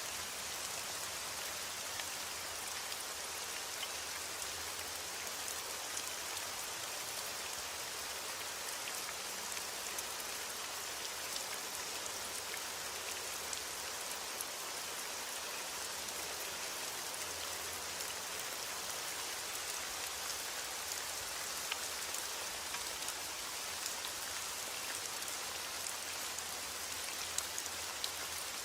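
Steady rainfall, a constant hiss with scattered individual drop ticks from drops striking a surface.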